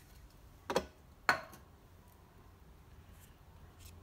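Two brief noises, about three-quarters of a second in and again half a second later, from lubricating and handling a new black rubber grommet for a plastic washer fluid reservoir cap; otherwise faint room tone.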